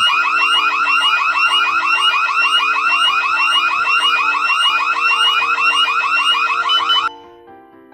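Electronic siren of a PIR motion-detector burglar alarm, sounding a loud, fast series of rising whoops, several a second, that cuts off suddenly about seven seconds in.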